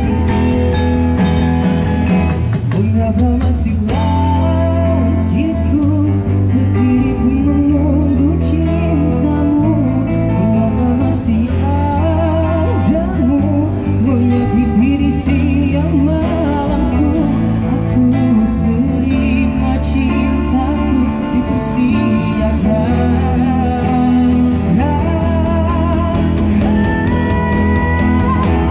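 A busker band playing live through amplifiers: a singer with vibrato over strummed acoustic and electric guitars and a steady bass line.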